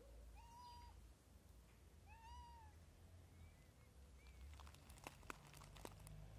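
A stray cat meowing: two clear meows about a second and a half apart, each rising then falling in pitch, followed by a couple of fainter short mews. A few sharp clicks sound near the end.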